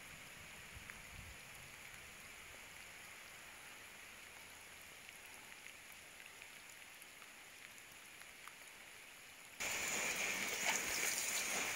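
Steady, faint hiss of water, like rain. Near the end it cuts abruptly to a louder, brighter hiss.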